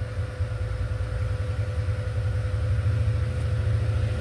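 A steady low rumble of machinery running in the background, with a constant hum above it.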